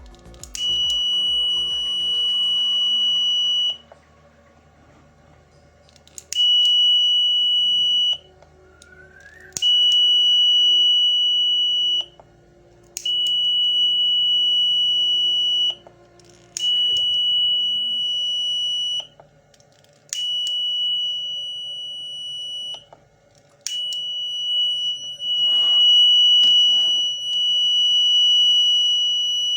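The buzzer of a 555-timer fire alarm circuit sounding a steady high-pitched tone in repeated bursts of about two to four seconds with short silent gaps, each start marked by a click, and held on for longer near the end: the alarm being triggered again and again as it is tested.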